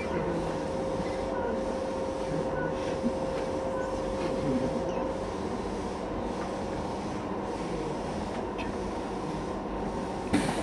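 Keisei 3400-series electric train standing at a station platform, heard from inside the car: a steady hum of its onboard equipment, with a steady tone that stops about halfway through. A short, sharp burst of noise near the end.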